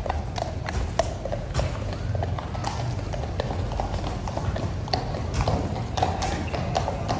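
Horses' hooves clip-clopping in an irregular stream of sharp clicks, several a second, from mounted guards' horses walking past, over a steady low background rumble.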